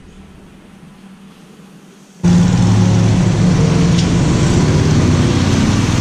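Quiet room tone for about two seconds, then, after a sudden cut, a single-cylinder motorcycle engine running at low speed with a steady engine note as the bike rolls off.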